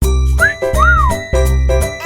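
Cheerful jingle-style music: a bouncy beat with a heavy bass note, bell-like chimes and a sliding whistle-like note that rises and falls.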